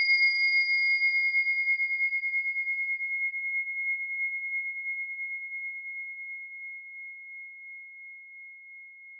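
A single struck bell-like tone, the starting tone of a timed exercise, ringing on at one high pitch and slowly fading. A higher overtone dies away about three seconds in.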